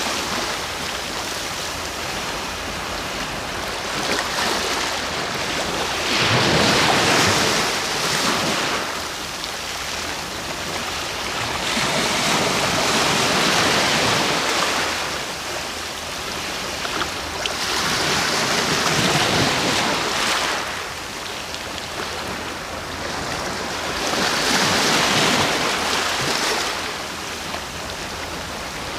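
Sea waves washing in and breaking, in four slow swells about six seconds apart, each rising and fading away into a steady background rush of surf.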